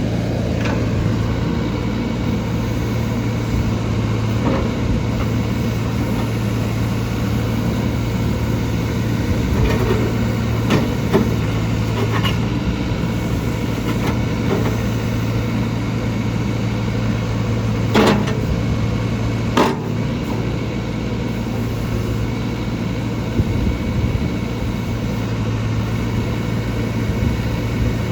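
John Deere 310SK backhoe loader's diesel engine running steadily, with a few sharp knocks from the machine as it works, the loudest near the end.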